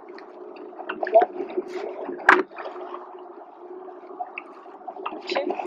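Water gurgling and splashing around rowing oars and a racing shell, over a steady faint hum. There is one sharp knock about two seconds in.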